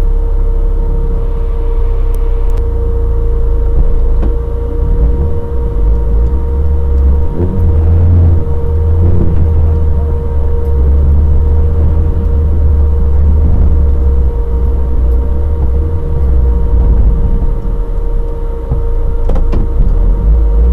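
Off-road vehicle engine running as it drives over rough ground, picked up as a loud, continuous low rumble by a camera mounted on the vehicle. A steady whine runs underneath, and the rumble swells about seven seconds in.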